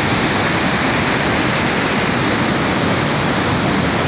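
Waterfall: white water pouring steadily through a rocky gap and churning over boulders, a continuous, even rush of water.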